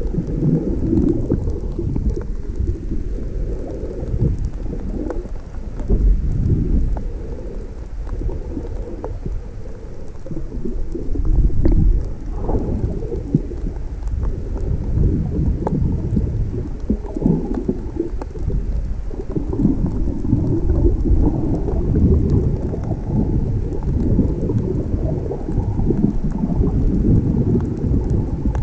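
Rough, stormy sea: surf and wind making a loud, deep, gusting rumble on the microphone that swells and eases irregularly.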